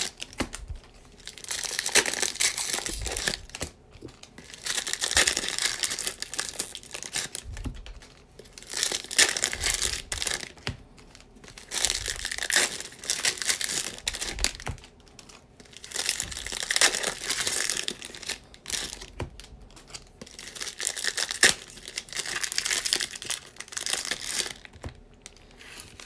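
Trading-card pack wrappers being torn open and crinkled by hand. The crackling comes in repeated bursts every couple of seconds, one pack after another.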